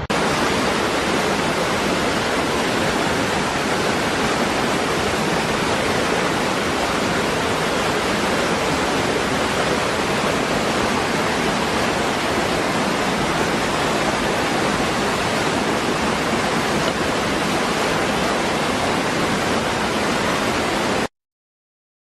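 Small waterfall pouring over rocks into a pool: a loud, steady rush of falling water that cuts off suddenly near the end.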